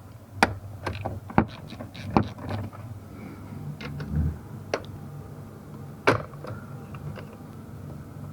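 Plastic interior trim panel being pried off a car's lower dashboard, its retaining clips snapping loose in a series of sharp clicks, with a dull thump about four seconds in.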